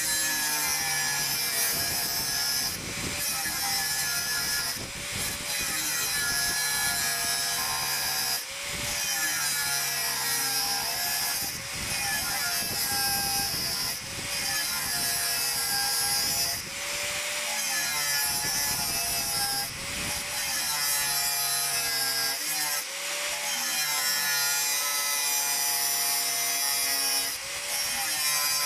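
Angle grinder with a thin cut-off disc cutting a row of notches into a steel knife blank. The motor runs on steadily and bogs under load in each cut, then briefly picks up speed as the disc is lifted out, about every two to three seconds.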